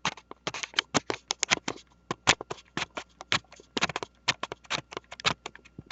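Rapid, irregular clicking and tapping, several sharp clicks a second, typical of hands handling small plastic parts up close.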